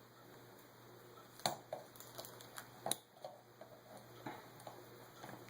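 Small metal clicks and taps, uneven and spread over a few seconds after a quiet first second and a half: needle-nose pliers and small parts working a retaining clip off a Holley 600 carburetor during disassembly.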